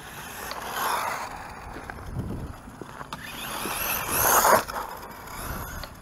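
Redcat Terremoto 10 brushless RC monster truck running fast on a 3S LiPo. Its motor and tyre noise on the gritty pavement swell as it approaches, are loudest about four and a half seconds in, then drop away quickly.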